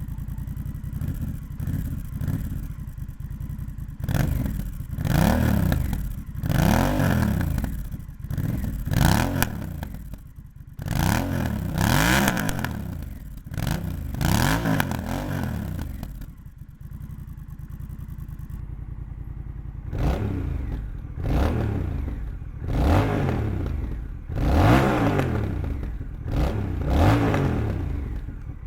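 Honda Rebel 1100's parallel-twin engine, warm and stationary, breathing through an aftermarket Coffman's Thunder exhaust. It idles, then is revved in about ten quick throttle blips, each rising and falling in pitch, with a longer return to idle midway.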